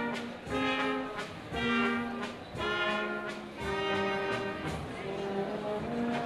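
Brass band of trumpets and tuba playing a dance tune: held brass notes changing every half second or so over a steady beat.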